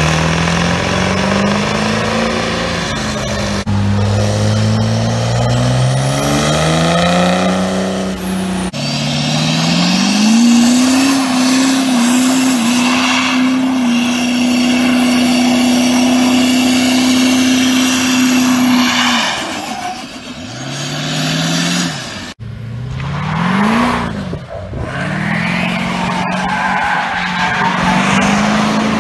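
Diesel pickup truck engines revving hard in a run of short clips: the pitch climbs in steps through gear changes, then holds high and steady for several seconds during a burnout with tyre squeal, then climbs again as another truck pulls away hard.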